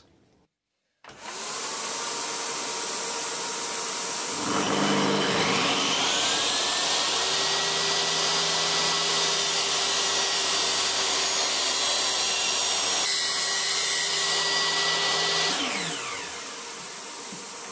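A dust extractor starting up about a second in, then a DeWALT table saw motor starting with a rising whine, running steadily for about ten seconds while the tenon cut is made, then switched off and winding down with a falling pitch near the end while the extractor keeps running.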